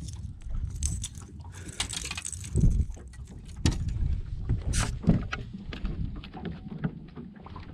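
Footsteps, knocks and clicks on a bass boat's deck, with several heavier thumps, over a low rumble of wind and water against the hull.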